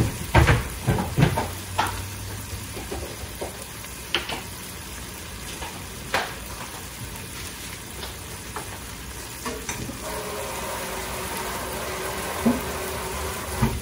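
Ground beef, onions and melted cheese sizzling steadily in a skillet on a gas stove. Several sharp clicks and knocks come in the first two seconds, with a few more later.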